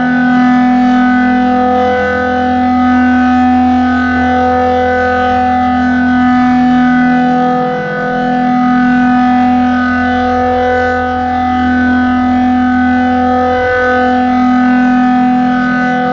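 A loud, steady siren-like tone held at one pitch. Its higher overtones swell and fade about every two seconds, and it hitches briefly about every six seconds.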